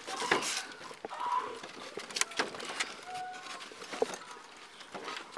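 Scrapes, clicks and knocks of a body-worn camera and police gear rubbing against wooden fence boards, with a few short high whines at about one second and three seconds in.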